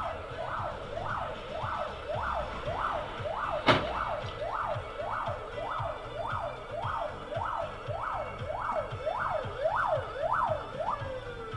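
Police car siren on a fast yelp, heard from inside a car, its pitch sweeping down and up about twice a second. Near the end it winds down in one long falling tone. A single sharp click sounds about four seconds in.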